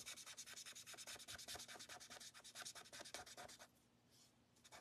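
Marker tip scratching across paper in quick, short back-and-forth colouring strokes. The strokes are faint and break off about three-quarters of the way through. The pen is one its user thinks is drying out.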